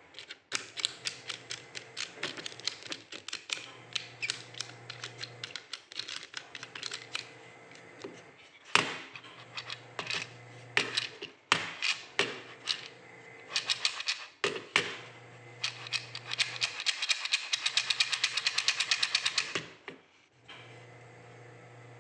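Wooden beads of an old abacus clicking as they are flicked along the rods against each other and the frame, in irregular runs of small clicks with a few sharper clacks. Near the end a fast, even rattle of clicks lasts about three seconds, then stops.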